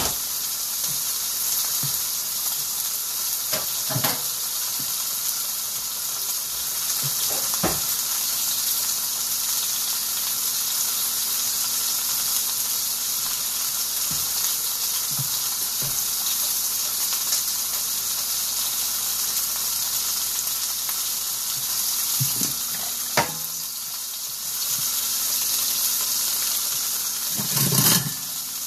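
Seasoned beef roast searing in a cast iron skillet, sizzling steadily with a few sharp pops. There is a louder knock near the end.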